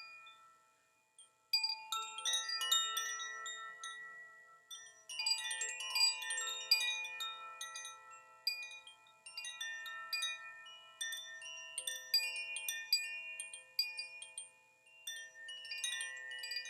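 Zaphir Blue Moon chime (the winter chime) being rung: clusters of clear, bright metallic tones come in repeated waves, each group ringing on and overlapping the next. Its tuning mixes D, F, A, B, C and E with an A sharp. It starts after a moment of near silence a second or so in.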